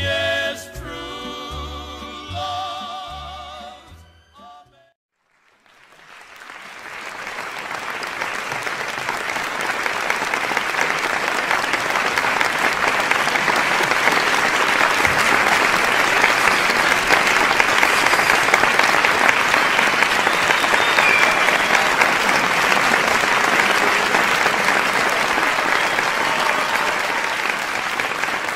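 A song with a singer's wavering held notes ends in the first few seconds; after a short gap, audience applause swells up and carries on steadily.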